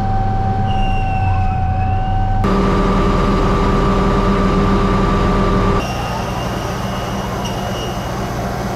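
Tor-M2 air defence vehicle running: a steady low machine hum with steady whining tones on top. The sound changes abruptly about two and a half and six seconds in, loudest in the middle stretch.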